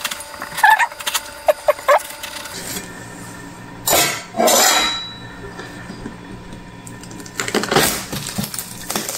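A large watermelon being cut open with a cleaver: a noisy burst of about a second as the blade goes through the rind and flesh about four seconds in, then another as the two halves are pried apart by hand and the melon splits open near the end.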